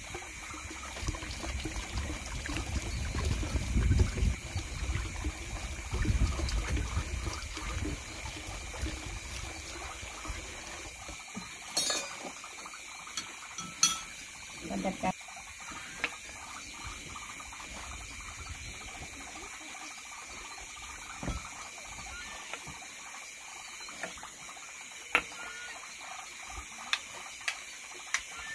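Water running from a pipe and splashing into a plastic tub. After about eleven seconds it gives way to a few sharp clinks of chopsticks and a ladle against ceramic bowls.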